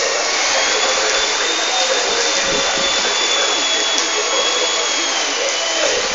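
A small electric motor running steadily: a whine over a rushing hiss of air, its pitch wavering slightly.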